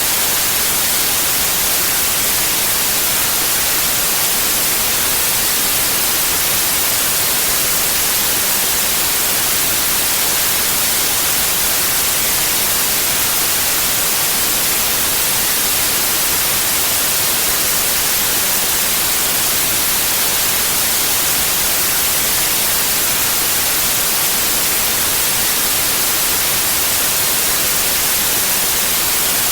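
Steady white noise: an even, unchanging hiss with no tones or events, brightest at the top.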